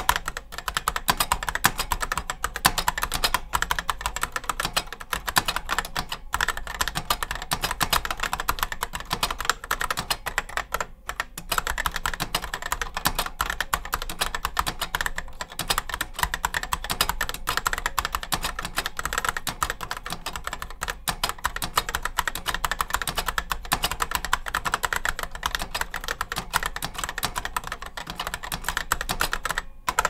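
Fast, continuous typing on a 1975 Decision Data 8010 keyboard with Micro Switch dual-magnet Hall effect switches: a dense stream of keystrokes, with a short break about eleven seconds in.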